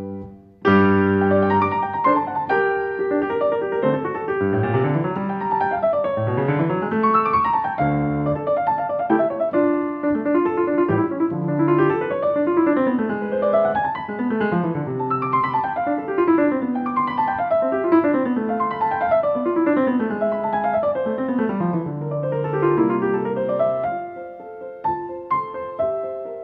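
Piano music playing quick rising and falling arpeggios over held bass notes. It starts abruptly just after the beginning and thins out near the end.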